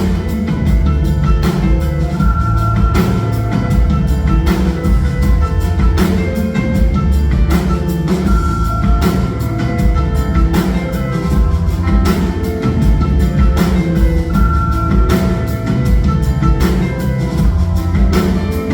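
Live band music, loud and steady, with a regular drum beat, heavy bass and held keyboard notes.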